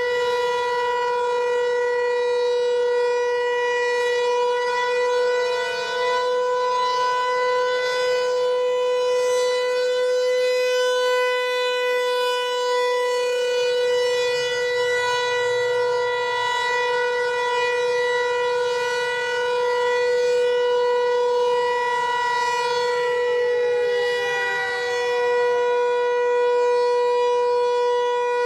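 Federal Signal Equinox electronic outdoor warning siren sounding a steady tone for its monthly test, the loudness swelling and dipping slowly as the rotating head turns. About two-thirds of the way through, a second, lower siren tone starts gliding downward beneath it.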